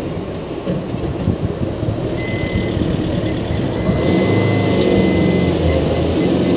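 Safari vehicle's engine running as it drives, growing louder about four seconds in. A steady high-pitched tone joins about two seconds in and breaks off briefly a few times.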